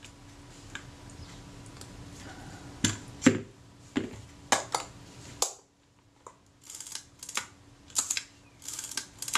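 Small, sharp metallic clicks and taps from a Kodak Retina IIa camera and a brass pin spanner being handled: a run of separate clicks from about three seconds in, a short dip to near quiet about halfway, then more clicks near the end.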